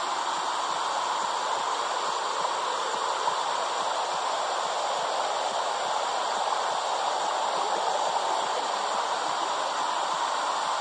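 Steady womb-sound whoosh for soothing babies: an even rushing hiss with no heartbeat or other beat in it.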